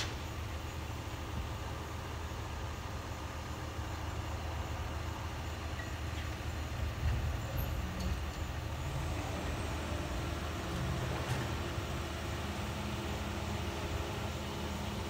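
Large truck's engine running steadily at idle, a continuous low rumble, with a faint extra hum joining in about halfway through.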